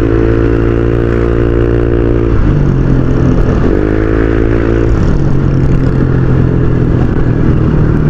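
Honda Click 125i scooter's single-cylinder engine running loud through an aftermarket MT8 racing exhaust while being ridden, the pitch dropping as the throttle eases about two and a half seconds in, rising again briefly, then dropping and holding steady from about five seconds in.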